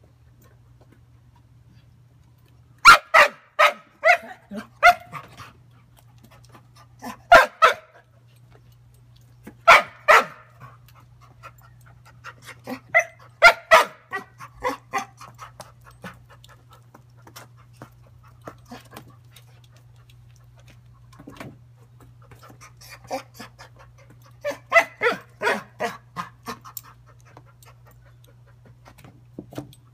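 A dog barking in about five volleys of a few sharp barks each, with quiet gaps between, at a ball floating out of its reach in a paddling pool.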